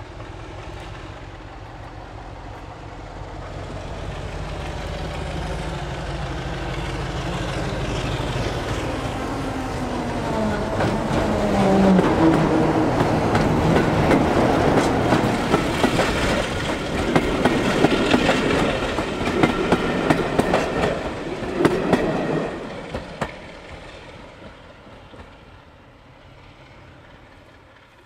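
BR Class 33 diesel locomotive working hard as it draws a train past, its Sulzer eight-cylinder engine growing louder as it approaches. Its pitch drops as it goes by. The coach wheels then clatter rapidly over the rail joints for several seconds before the sound fades away.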